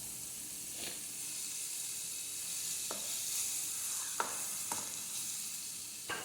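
Shrimp, chopped onion, bell pepper and tomato sizzling as they sauté in a pan, with a steady frying hiss. A handful of short knocks of a spoon against the pan are scattered through it.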